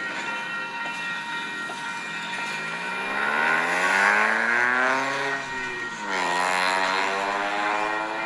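Freight cars rolling slowly past with a steady high-pitched squeal from the wheels. Over it, an engine accelerates: its pitch climbs from about two seconds in, drops sharply at a gear change about five and a half seconds in, then climbs again.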